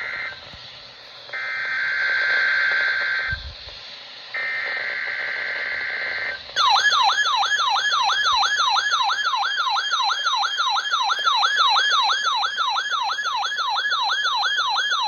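NOAA Weather Radio SAME alert header: two shrill bursts of digital data tones about two seconds each, then a loud warbling alarm tone that sweeps up and down about three times a second, signalling a required weekly test of weather-alert receivers.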